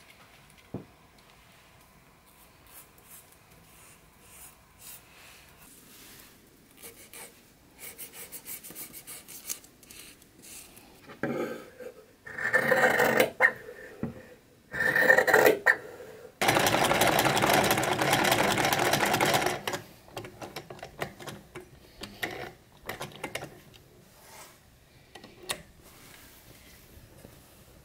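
Sewing-room sounds: black fabric being cut with large shears in loud crunching snips, then a loud steady rushing noise for about three seconds. Near the end comes soft clicking while a vintage black sewing machine stitches the fabric.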